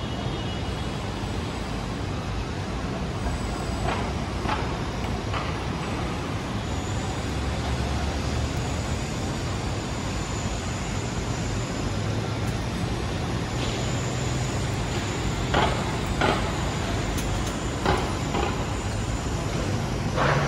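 City street traffic: a steady wash of engine and tyre noise with the low hum of a bus or truck engine, broken by a few short knocks and clatters.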